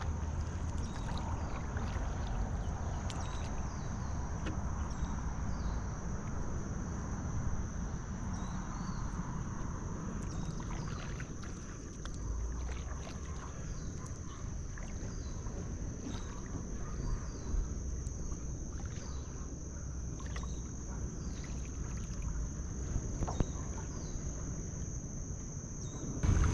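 Stand-up paddleboard moving on a calm river: a steady low rumble of water and wind on the microphone, with scattered small drips and splashes and a thin steady high whine throughout.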